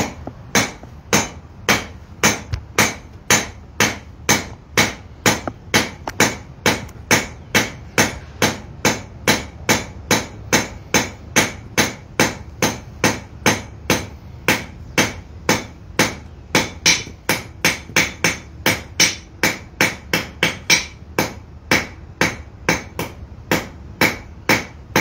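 Blacksmith's hand hammer striking a hot bar on an anvil: a steady run of small, sharp blows at about two to three a second, drawing out a taper on the bar's end.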